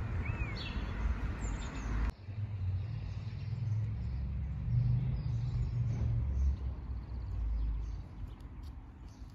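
Outdoor street ambience: a steady low rumble with birds chirping now and then. The sound changes abruptly about two seconds in, then goes on in the same way.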